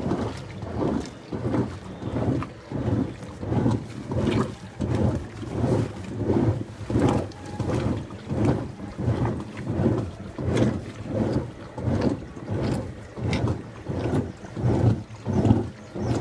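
Washing machine agitating a wash load, the water and clothes sloshing back and forth in a steady rhythm of about two strokes a second.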